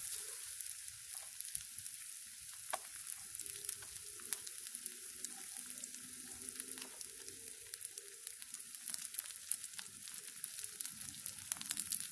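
Battered whiting pieces frying in hot oil in a small camping pan: a steady sizzle with frequent small crackles and pops.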